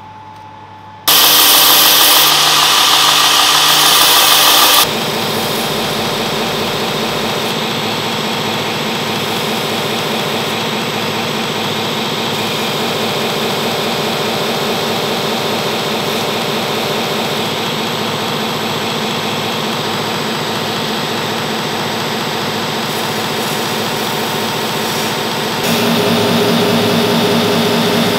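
Belt grinder running, starting abruptly about a second in with a loud harsh hiss for a few seconds. It then settles into a steady grind as the steel head of an Estwing axe is held against the moving abrasive belt. The sound grows louder and changes tone near the end.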